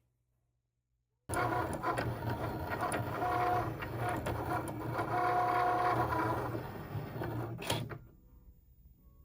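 Cricut cutting machine running as it cuts a printable magnet sheet: motors whirring with a low hum and two brief steady whines. It starts suddenly about a second in and stops near the end.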